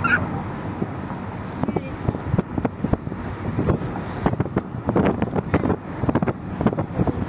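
Steady road noise of a moving car, heard from inside the cabin, with many short irregular knocks and rustles on the phone's microphone.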